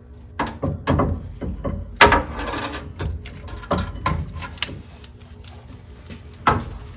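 Hand tools working on a Jeep Cherokee XJ's steering parts: a string of metallic knocks and clicks, with a denser rasping run about two seconds in and one sharp knock near the end.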